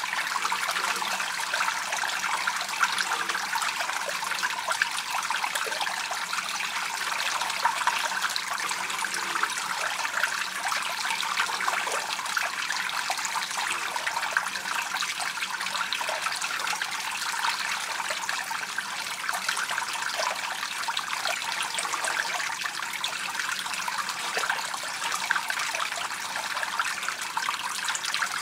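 A thin stream of water pouring onto wet rock, splashing and trickling steadily without a break.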